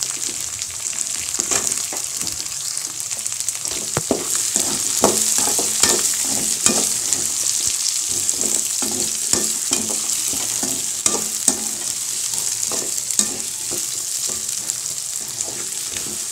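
Cubed bottle gourd sizzling in hot oil with shallots, with a steady hiss, while a perforated metal spatula stirs it and repeatedly scrapes and taps against the wok.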